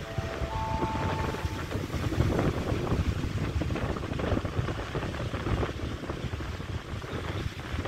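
SRT Red Line electric multiple-unit train creeping in toward the platform through the points. Its electric whine steps through a few tones in the first second or two, then a steady low rumble follows, with wind buffeting the microphone.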